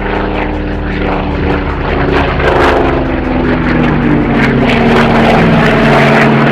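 Rare Bear, a heavily modified Grumman F8F Bearcat racing plane, flying past with its big radial engine and propeller droning. The sound grows louder, and its pitch falls as the plane goes by.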